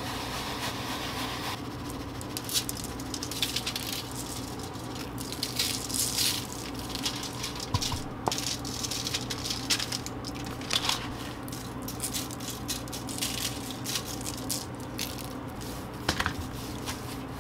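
Dry rub being sprinkled onto a skinned rabbit and rubbed in by hand on a sheet of aluminium foil: irregular crinkling and rustling of the foil with soft patters of seasoning. A steady low hum runs underneath.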